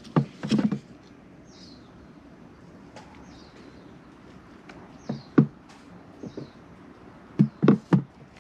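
Groups of sharp knocks and clatter: one near the start, a pair about five seconds in, and a quick run of four near the end. A faint short falling chirp repeats about every second and a half behind them.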